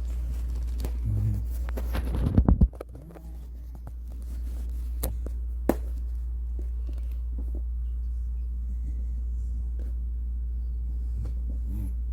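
Steady low hum with a quick run of loud thumps about two and a half seconds in, then a single sharp click near six seconds.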